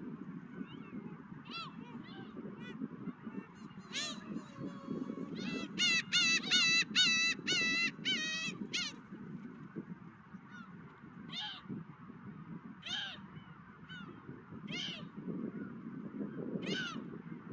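Gulls calling over a steady low rush of wind: scattered single mewing calls, with a quick run of about eight calls a few seconds in, the loudest part.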